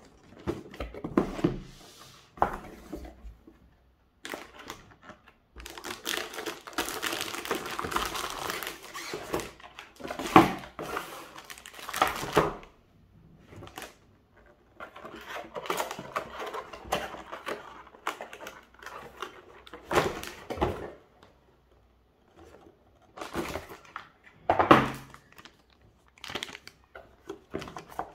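Hands unboxing a motherboard: cardboard box and inner tray sliding and scraping, crinkling of the packaging, and a few sharper knocks as box parts are set down on the table.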